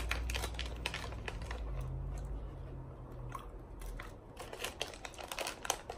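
Crinkling and tearing of plastic MRE ration pouches as they are handled and opened, with crunching from nuts being chewed. A low steady hum runs underneath for about the first half.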